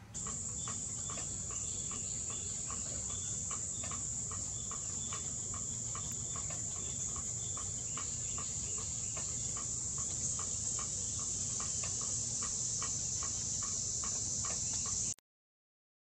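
Steady high-pitched insect chorus, with a regular ticking about two to three times a second. It cuts off suddenly near the end.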